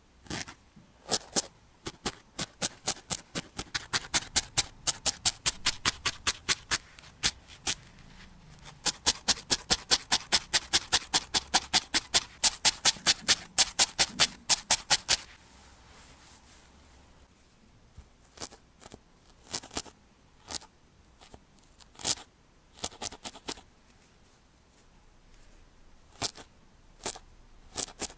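Barbed felting needle stabbing over and over into a needle-felted wool cat head, each stab a crisp punching click. The clicks come about four to five a second through the first fifteen seconds, then turn to slower, scattered stabs.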